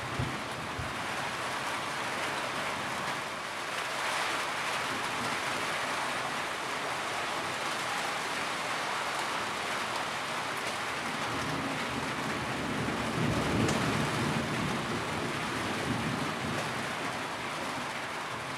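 Steady rain falling, with a low roll of thunder building in the second half and peaking about two-thirds of the way through.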